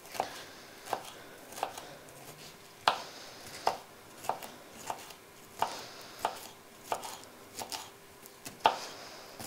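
Kitchen knife slicing a green bell pepper into thin strips on a wooden cutting board, the blade knocking the board in a steady rhythm of about three cuts every two seconds.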